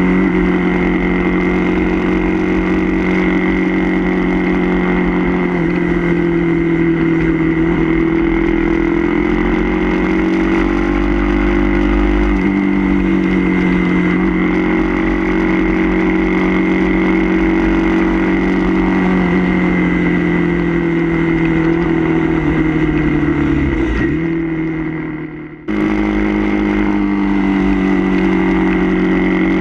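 Suzuki DR-Z400 supermoto's single-cylinder four-stroke engine running at road speed, its pitch rising and falling gently with the throttle through the bends, with wind rush underneath. Near the end the sound fades away for a moment, then cuts sharply back in.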